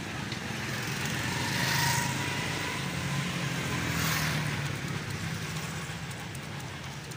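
Road traffic going past in the background: a steady engine hum with two vehicles swelling past, about two and four seconds in.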